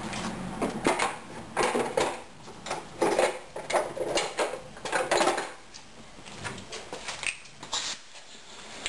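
Irregular knocks, clicks and clatter of hand-held air tools being handled, set down and picked up. There are a few short, sharper bursts in between but no steady motor running.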